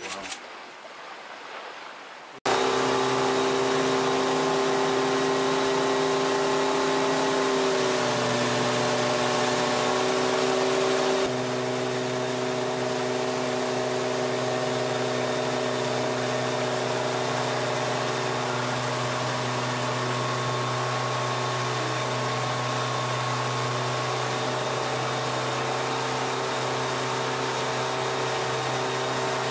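Motorboat engine running steadily at speed, cutting in suddenly about two seconds in, over the rushing water of the boat's wake. The engine's hum shifts slightly in pitch twice.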